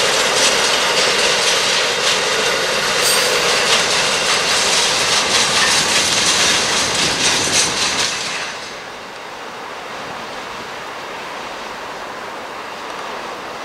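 Container train wagons rolling past close by, their wheels clattering on the rails, until the last wagon clears about eight seconds in. After that the train's noise drops to a fainter steady sound as it moves away.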